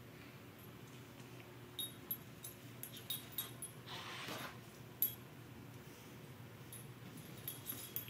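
Shetland sheepdog puppy and calico kitten scuffling on a hardwood floor: scattered light clicks and clinks, a short breathy noise about four seconds in, and a sharp tap about a second later.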